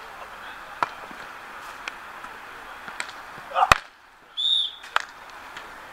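Beach volleyball rally: sharp slaps of hands on the ball about once a second, the loudest with a short shout just before it, then one short blast of the referee's whistle ending the rally.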